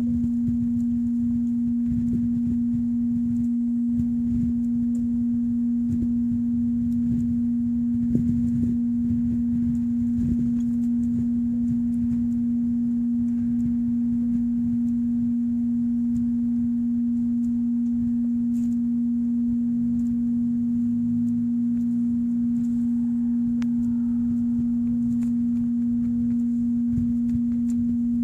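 A steady, pure low-pitched hum on one unchanging note, held without a break, over a faint fluttering rumble with scattered light clicks.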